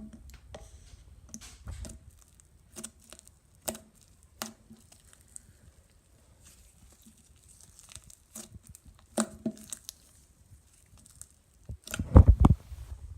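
Hands working dough slime, making scattered sticky clicks and tearing crackles, with a cluster of louder knocks about twelve seconds in.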